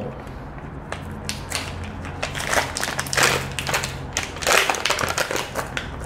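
Plastic blister packaging being ripped open by hand, with irregular crinkling, crackling and tearing.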